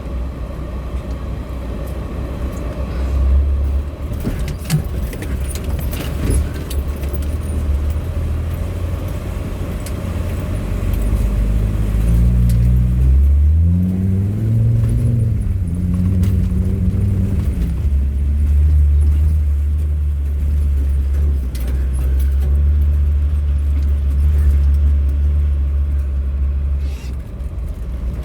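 Land Rover Td5 five-cylinder diesel engine pulling steadily through a flooded ford. About halfway through it revs up and drops back, then runs on evenly, with scattered knocks and rattles from the vehicle over the top.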